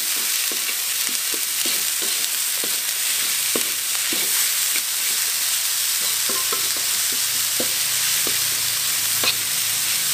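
Vegetables sizzling in a wok while a wooden spatula stirs them, scraping and knocking against the pan a few times a second, with one sharper knock near the end.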